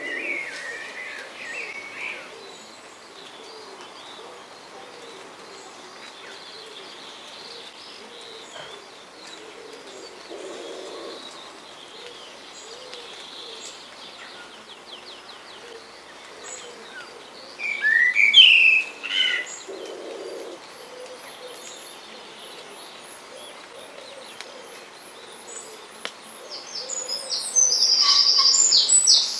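Mixed wild birdsong: scattered calls and soft low notes, then a loud call in two rising bursts about two-thirds of the way through. Rapid, high-pitched repeated song builds up near the end.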